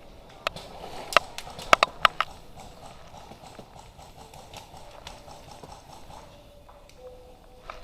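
About six sharp cracks in the first two and a half seconds, some in quick pairs, typical of gas-blowback airsoft guns firing. After them comes a fast, even patter.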